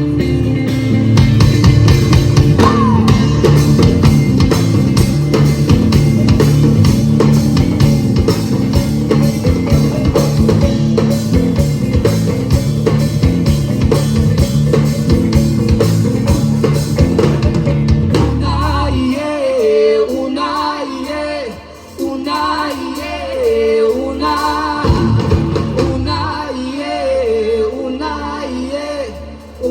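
Rock-style band music with drums, bass and guitar playing a steady beat; about two-thirds of the way through, the drums and bass drop out and a voice sings over lighter accompaniment.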